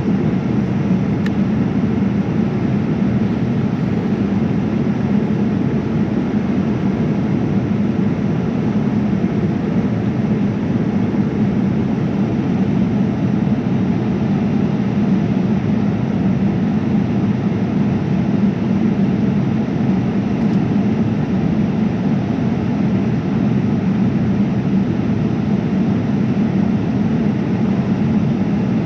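Steady engine and airflow noise of a Boeing 787-9 heard from inside the passenger cabin, an even rumble with no change in level.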